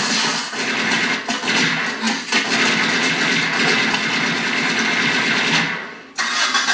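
Film soundtrack playing from a television and picked up across a small room: a loud, dense, steady wash of noise that drops away briefly about six seconds in, then returns.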